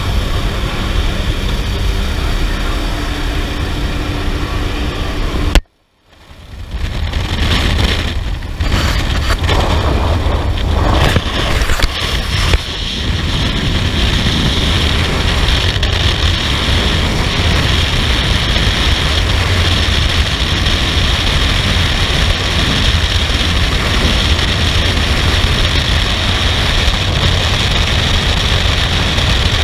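Jump plane's engine and propeller drone inside the cabin with the door open. About six seconds in it cuts out abruptly, and then a loud, steady rush of freefall wind over the camera's microphone follows.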